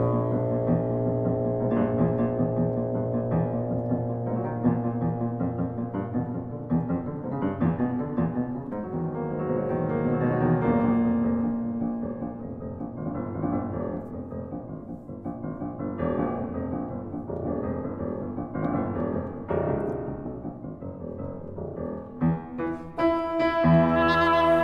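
Chamber music for oboe, bassoon and piano: mostly a piano passage of many short notes, over a low held note at the start. About a second and a half before the end, louder sustained notes come in.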